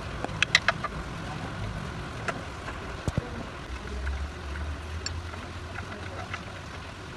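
Sharp metallic clinks and taps, a cluster of them in the first second and a couple more later, over a steady low rumble.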